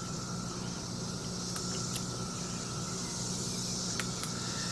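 Steady low background hum with a high hiss, and a few faint light clicks, about two near the middle and two near the end, from small parts being handled.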